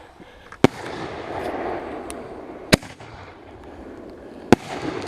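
Consumer fireworks going off: three sharp bangs about two seconds apart, with a hissing crackle after the first.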